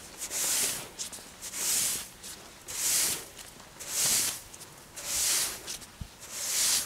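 A broom sweeping snow off a ramp in six even strokes, each a hissing swish, a little over one stroke a second.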